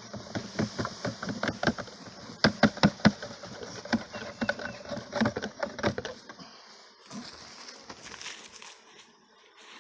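Irregular knocks and rattles of a honeybee package being jarred and shaken to tip the bees out into a top bar hive, over the steady buzz of honeybees. The knocking stops about six seconds in, leaving the buzz.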